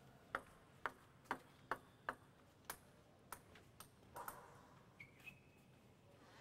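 Table tennis ball bounced repeatedly between points, a sharp light click about every half second, about ten in all, the first few loudest and the rest fainter.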